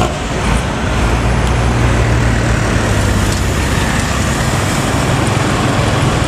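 Intercity bus diesel engine with a 'ngorok' (snoring) exhaust going by close, a loud low exhaust roar with a steady drone that swells about a second in and eases off near the end, over road noise.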